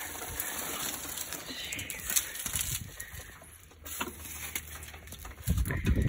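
Dry soybean stalks and pods rustling and crackling as they are pulled by hand out of a plugged combine header auger, with scattered small clicks and a louder thump near the end.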